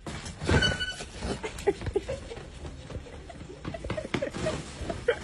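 Hand trucks loaded with boxes rolling and rattling over a hard store floor, with scattered knocks and clatter.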